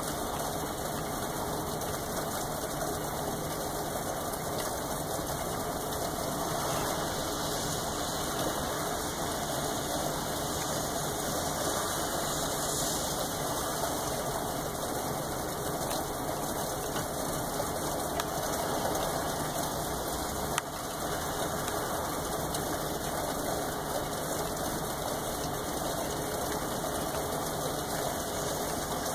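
Steady rain falling, an even unbroken wash of sound, with a single brief click about twenty seconds in.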